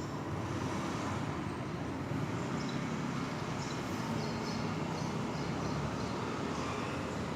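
Steady rumbling noise, like road traffic, with no distinct events.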